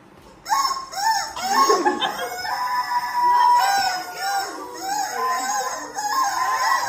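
Comic background music with clucking, chicken-like sounds, starting about half a second in.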